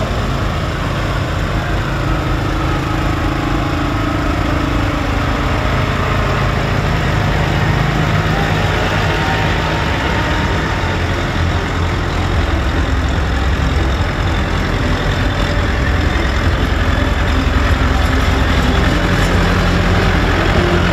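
Diesel tractor engines running slowly at close range, a steady low engine sound that grows a little louder in the second half.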